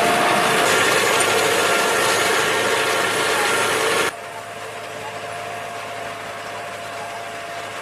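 John Deere 5100R diesel tractor working with a reversible plough, a loud steady engine with mechanical rattling and clanking. About four seconds in the sound drops abruptly to a quieter, steady engine sound.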